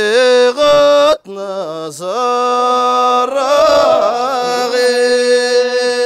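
Men singing an unaccompanied Moroccan folk chant: short sliding opening phrases, then one long held note that wavers as other voices briefly come in about three and a half seconds in. No drums are played.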